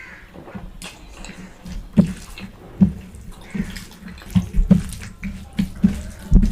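Wet, messy eating sounds: chewing and lip-smacking on curry and rice, with irregular loud wet smacks roughly every half second, more of them in the second half.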